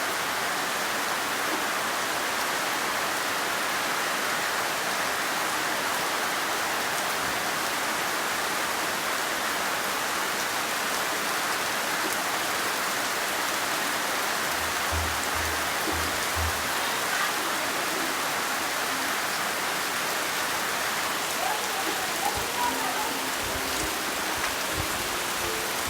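Heavy monsoon rain pouring steadily. In the second half music with a low bass beat comes in faintly under the rain, growing plainer near the end.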